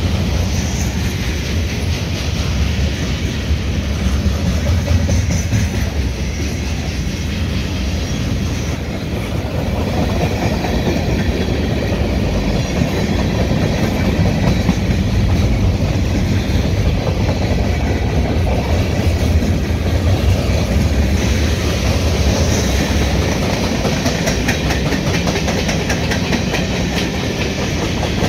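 CSX freight train of tank cars and covered hoppers rolling past steadily: a continuous rumble of the cars with the clickety-clack of their wheels over the rail joints.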